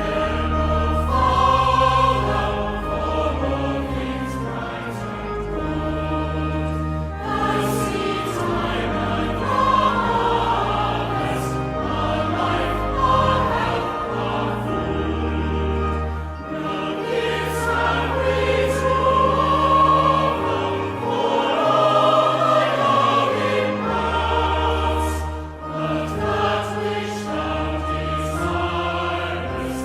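A choir singing a hymn with instrumental accompaniment, the voices over sustained bass notes that change every second or two.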